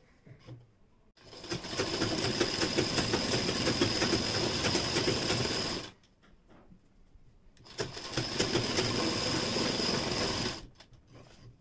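Sewing machine stitching a kurti side seam in two runs, the first starting about a second in and lasting four to five seconds, the second about three seconds long after a short pause, each with a steady high whine.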